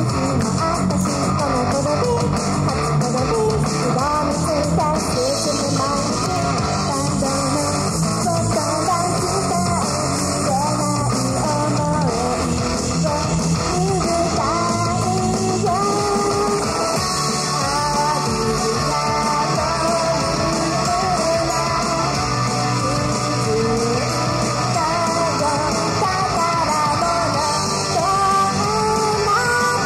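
Girl idol group singing into microphones over loud, guitar-driven pop-rock music, heard through a live venue's PA.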